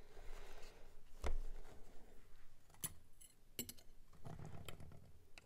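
Small metal spatula clicking and tapping against a metal makeup compact and pressed-powder pans: a few scattered sharp clicks, the loudest about a second in.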